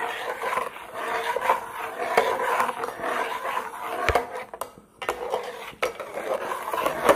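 A spoon stirring and scraping the bottom of a pot of simmering cream as it is cooked down into desi ghee, in repeated strokes with small clicks against the pot, with a brief pause a little past halfway. The constant stirring keeps the cream from catching on the bottom.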